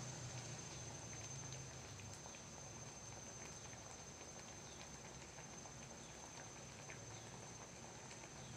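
Fish curry simmering in a wok: faint scattered bubbling and popping over a steady hiss, with a thin high whine throughout and a low hum that fades after about two seconds.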